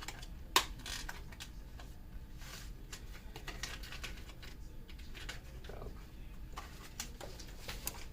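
Small scattered clicks and taps of hand tools and parts being handled on a phone during repair, with one sharper click about half a second in, over a low steady hum.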